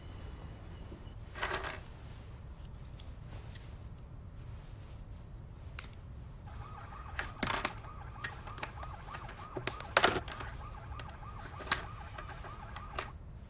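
Wooden clothes pegs clicking and clattering against each other and the tabletop as they are picked up and stacked, a string of sharp clicks with the loudest cluster about ten seconds in. A faint wavering tone runs under the second half.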